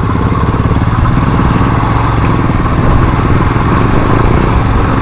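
Royal Enfield Himalayan motorcycle's single-cylinder engine running at low, steady revs while the bike is ridden slowly.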